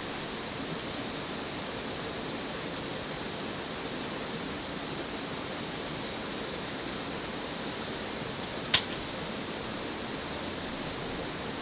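Steady hiss of rain falling. A single sharp click about three-quarters of the way through is the loudest moment.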